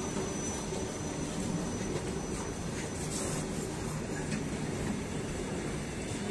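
Freight train of open-top wagons passing close by: a steady noise of wheels running over the rails, with rattling and a few light clicks. A faint high-pitched whine is present for about the first half.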